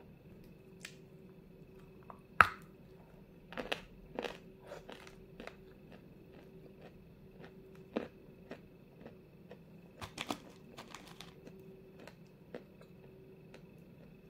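Close-up crunching of a chunk of Vasilpolye 'zefirka' edible clay being bitten and chewed, in irregular crisp crunches. The sharpest crunch comes about two and a half seconds in, with clusters of smaller crunches after it.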